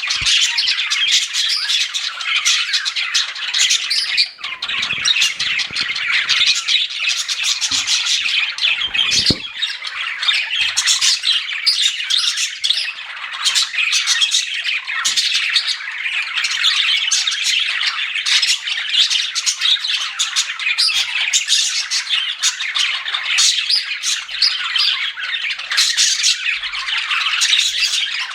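A group of pet budgerigars chirping and chattering without a break, a dense, busy mix of warbles, chirps and squawks.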